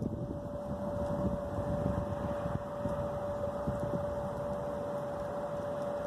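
Steady machine hum: one constant mid-pitched tone over an even low rumble.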